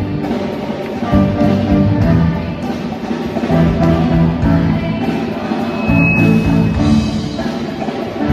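Orchestra playing an instrumental arrangement of a Thai pop love song, with sustained melodic notes over a pulsing beat.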